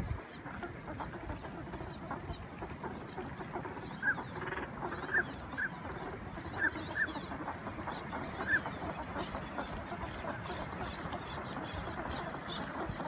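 Northern pintails calling from the water: about half a dozen short, high whistled notes through the middle, over a steady background noise.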